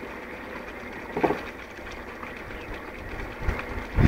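Water gushing steadily from the outlet of an animal-driven pump's pipe and splashing onto the ground. A brief low thump comes near the end.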